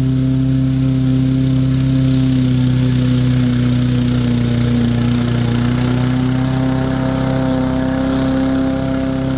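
Poulan push lawn mower's small gasoline engine running steadily while cutting grass, its pitch sagging slightly around the middle and picking back up later on.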